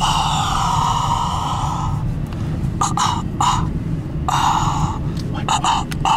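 Breathy vocal sounds from a person close to the microphone: a long exhalation-like stretch, then short gasping bursts. Underneath is the low steady rumble of a car cabin rolling slowly.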